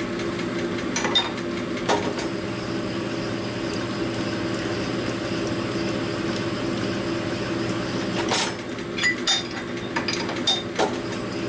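Stone-type honing machine running steadily under oil flow, its stones cutting metal, with a steady hum and a few sharp metallic clinks, most of them near the end.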